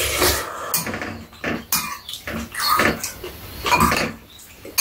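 Metal forks and chopsticks clicking and scraping against bowls of noodle soup in a run of short, irregular clinks. Between the clinks there are eating noises as the noodles are slurped and chewed.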